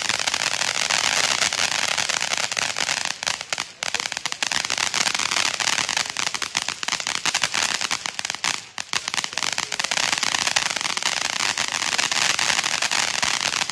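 Grand Patriot 'Glitz & Glamour' 200 g firework fountain spraying: a steady rushing hiss packed with dense crackling from its crackle effect, briefly thinning twice, about four and nine seconds in.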